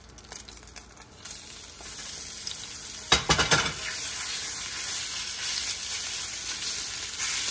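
Raw beef chunks sizzling as they are dropped into smoking-hot oil in a cast-iron skillet to sear. A faint sizzle turns into a sudden loud hiss about three seconds in as the meat lands, then a steady sizzle.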